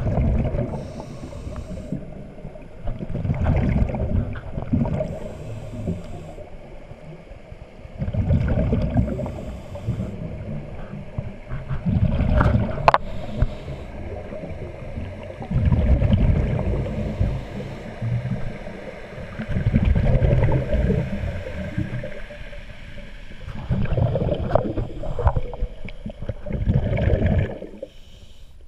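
Scuba diver breathing through a regulator underwater, heard through the camera housing: a burst of rumbling exhaust bubbles about every three to four seconds, each lasting one to two seconds, with quieter inhalations between them. A single sharp click about halfway through.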